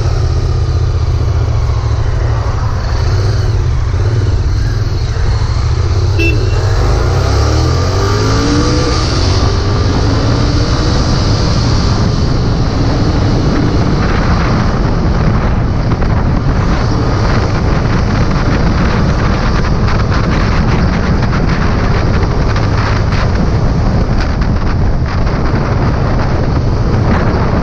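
Royal Enfield Continental GT 650's parallel-twin engine running under way on a ride, with a steady low exhaust note and a brief rise and fall in engine pitch about eight seconds in. Wind buffets the microphone through the second half.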